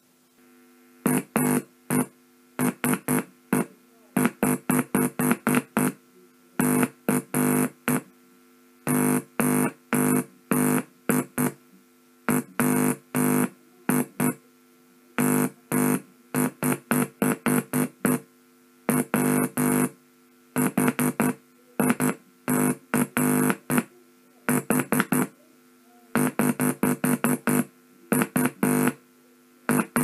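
Morse code tone from an electronic Morse code generator keyed with a Bencher iambic paddle: a buzzy tone of one fixed pitch switching sharply on and off in dots and dashes, sent in letter groups with short pauses between them.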